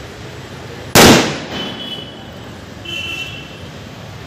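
A firecracker goes off on the road with one very loud bang about a second in, ringing out briefly. It is followed by two short high-pitched tones.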